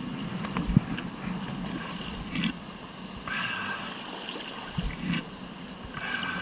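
Rushing river whitewater with surges of splashing, and a couple of short dull knocks.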